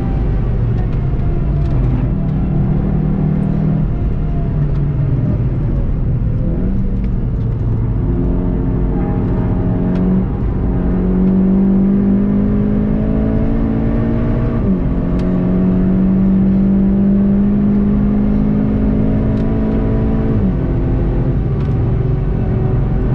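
VW Golf 7.5 GTI TCR's turbocharged 2.0-litre four-cylinder engine running hard, with road and wind noise, heard from inside the cabin. Its pitch sinks as the car slows, then climbs under acceleration, dropping suddenly at two upshifts, one midway and one near the end.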